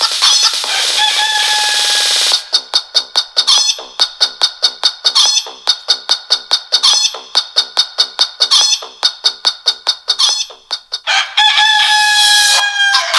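Samsung Galaxy Young GT-S6310N alarm tone of farmyard chicken sounds: a long rooster crow, then a long run of quick clucks at about four a second, then a second crow near the end.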